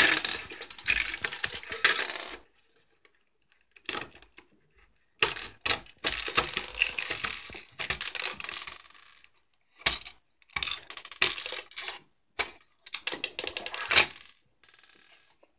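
Plastic LEGO pieces being picked up, shuffled and set down on a baseplate and wooden table: spells of clicking and clattering with short quiet gaps between, the longest about a third of the way in.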